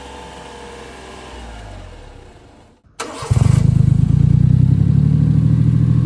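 Honda Acty mini truck's 660 cc three-cylinder engine idling quietly through its stock exhaust, its engine speed drifting down. After a brief gap, the same engine idles much louder and deeper, with a steady low drone, through a stainless Wirus Win aftermarket muffler.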